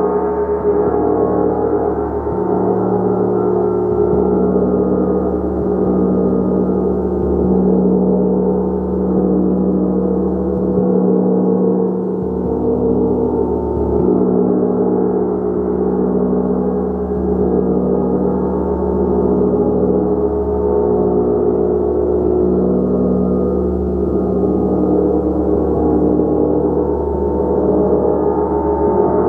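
Gong played continuously, a dense sustained wash of overlapping tones that swells and ebbs without pause.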